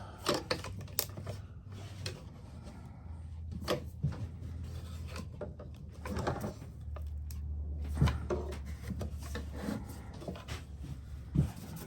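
Clamps and a glued wooden table leg being handled and adjusted: scattered knocks, clicks and rubbing of metal clamp parts and wood at irregular intervals, over a low hum that comes and goes.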